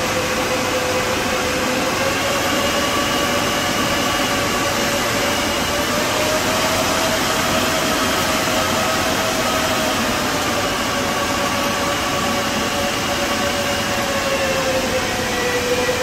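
Cisco equipment chassis cooling fans running loudly with a steady whine. The pitch rises a little a few seconds in, holds, then eases back down near the end as the fan speed changes.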